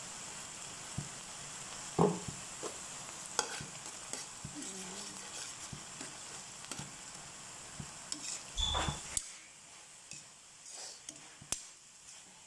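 Ground meat sizzling in a stainless steel pan after soy sauce is poured in, while a metal spatula scrapes and clicks against the pan as it is stirred. A thump comes about eight and a half seconds in, and the sizzle dies down soon after.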